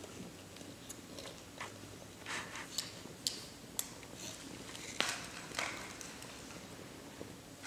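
A small child crunching and chewing small snack pieces, with scattered sharp clicks and rustles as fingers pick pieces out of a shallow bowl.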